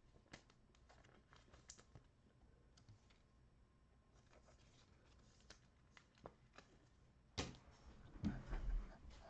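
Faint clicks of trading cards being handled, then, about seven seconds in, a sharp crackle and crinkling of a cellophane-wrapped card pack being torn open.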